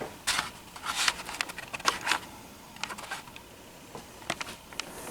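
Handling noise: scattered light clicks and short rustles, with a few sharper clicks clustered about three and four seconds in.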